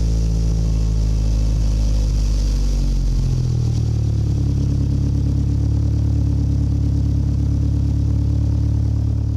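Nissan Altima engine idling steadily just after being started, its first run on freshly installed spark plugs and reconnected plug wires. The idle note shifts a little about three seconds in, then holds steady.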